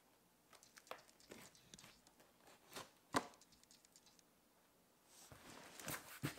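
Knife scraping and cutting at packing tape on a cardboard box, a few small scattered clicks with one sharper knock about three seconds in, then cardboard rubbing and rustling as the box is turned over near the end.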